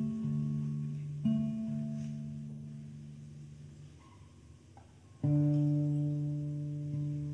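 Solo classical guitar, an Alkis Efthimiadis instrument, played slowly and sparsely. Two plucked low chords in the first second or so ring out and fade almost to nothing. After a couple of soft notes, a loud low chord sounds about five seconds in and rings on.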